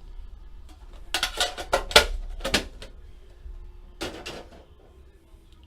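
Trading card box and its packaging being handled and opened: a quick run of scraping, clattering strokes about a second in, and another short one near four seconds.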